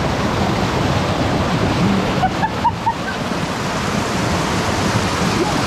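Water from a small waterfall rushing steadily over rocks into a pool, with a few short, sharper sounds about two and a half seconds in.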